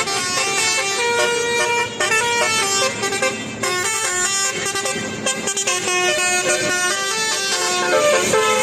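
Bus telolet horn: a multi-tone air horn playing a quick tune, one pitched note after another with no break.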